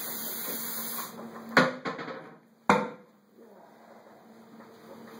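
Two sharp knocks about a second apart, the first followed closely by a smaller one, over a steady low hum.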